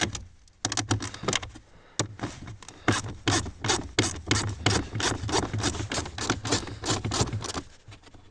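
Socket ratchet clicking in quick runs, about five clicks a second, with scraping and knocking against plastic as the 8 mm bolts holding a car's heater blower motor are undone.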